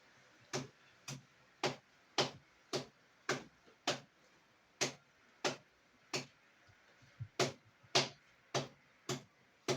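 Steady rhythmic tapping on a patient's body during a massage treatment, a little under two taps a second, each a short thud with a sharp click.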